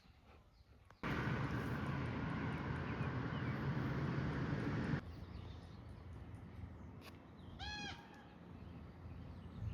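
A loud, steady rushing noise starts abruptly about a second in and cuts off suddenly about four seconds later. After it, a bird calls once, a short note that rises and falls in pitch.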